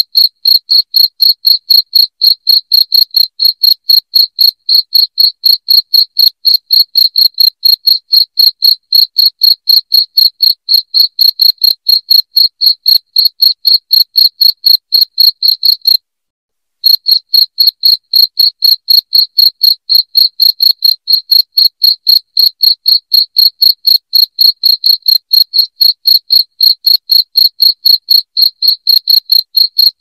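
Crickets chirping loudly in a fast, even pulse of high, clear chirps, several a second. The chirping breaks off completely for under a second just past halfway, then carries on as before.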